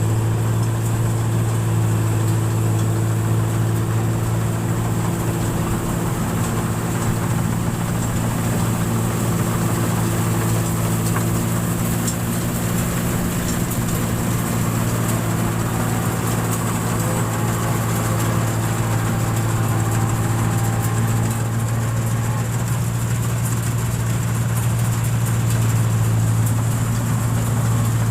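Engine-driven rice paddy machine running steadily: a constant low drone with a few overtones and no change in speed.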